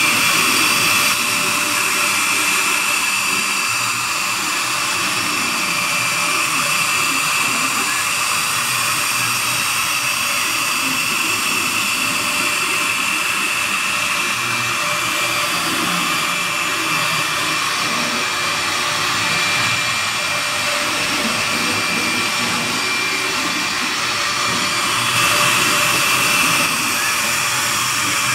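Metallab CNC router's electric spindle running at speed, a steady high whine over the hiss of a tapered engraving bit carving a wooden relief. Briefly a little louder near the end.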